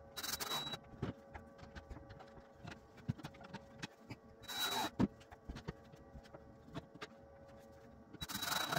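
Three brief bursts of a cordless driver running, about four seconds apart, with light knocks and taps on the wooden cabinet tops between them.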